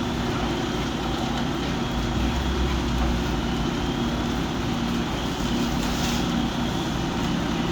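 Fire truck engine running steadily, a constant droning hum with a low rumble.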